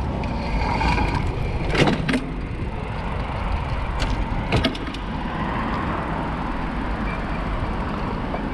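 Steady low rumble of riding a bicycle through city traffic, heard from a camera on the bike, with a few sharp rattles about two seconds in and again around four and a half seconds in.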